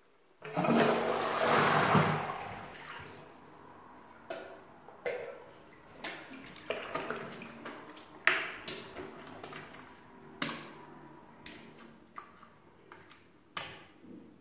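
Toilet flushing for about two seconds, water rushing into a bowl packed with water balloons. Then a string of sharp pops with short splashes, irregularly spaced, as the water balloons in the bowl are burst with a wooden skewer.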